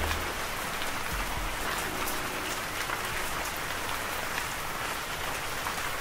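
Steady rain, a dense hiss of falling drops with fine ticks throughout. The last low notes of the music die away in the first half second.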